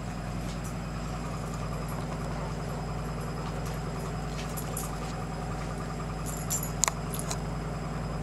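Steady low hum with no change in pitch or level, marked by a few faint clicks and one sharp click about seven seconds in.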